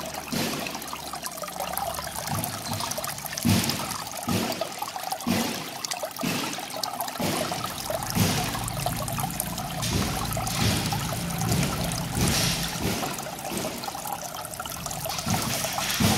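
Water trickling and splashing down the rocks of a miniature rock-garden fountain into its small pool: a continuous trickle with irregular louder splashes.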